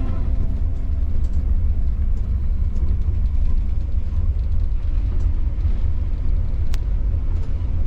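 Steady low rumble of a vehicle driving along a sandy dirt track, heard inside the cab, with one sharp click about seven seconds in.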